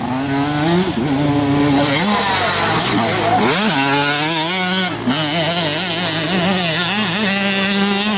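Motocross bike engine revving under throttle, its pitch rising and falling as the rider works the throttle, with a sharp drop and climb about three and a half seconds in.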